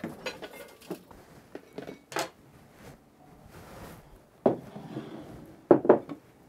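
Glass and ceramic bowls being set down on a wooden countertop: a few sharp knocks, the loudest about halfway through and just before the end, with handling and rustling between.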